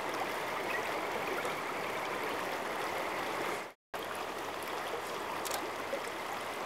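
Shallow, stony stream flowing steadily over rocks, a continuous rushing and trickling. The sound cuts out for a moment a little before four seconds in.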